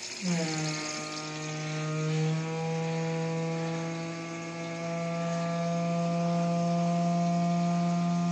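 Front-loading washing machine starting its wash cycle: a steady machine hum sets in just after the start, slides briefly down in pitch and then holds, over a hiss of water running into the drum.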